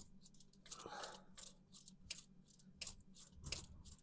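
Faint, rapid, irregular clicking of a ratchet wrench turning the small 10 mm distributor hold-down bolt.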